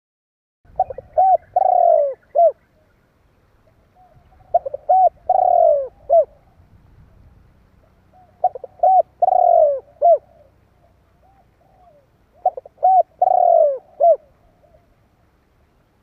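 Spotted dove cooing its song four times, about four seconds apart: each phrase is a few short coos and one longer coo that falls in pitch.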